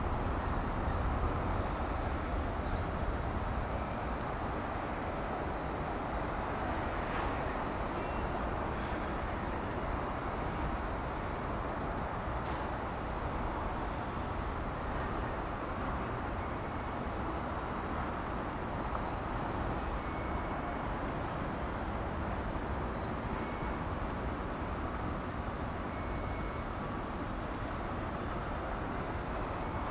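Steady outdoor background rumble and noise, with faint short high tones now and then.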